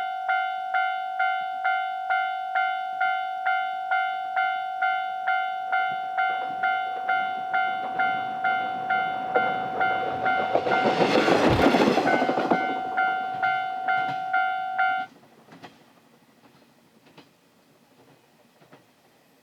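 Level crossing warning alarm dinging steadily, about one and a half strokes a second, while a KiHa 120 diesel railcar passes, its noise swelling to a peak a little past halfway and fading. The alarm cuts off suddenly about three quarters of the way through, leaving only faint ticks.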